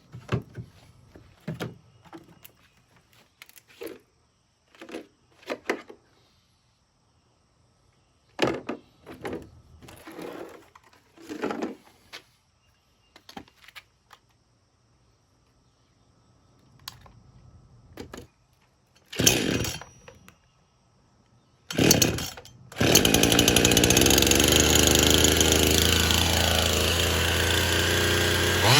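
Husqvarna 55 two-stroke chainsaw being started: scattered clicks and knocks of handling, two loud rasping pull-cord yanks, then the engine catches about three-quarters of the way in and runs steadily and loud.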